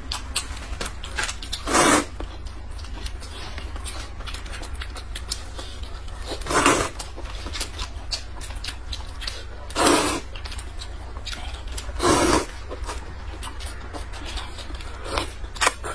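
Eating noises over hot noodle soup and dumplings: a few loud mouth noises of about half a second each, spaced a few seconds apart, with fainter small clicks in between.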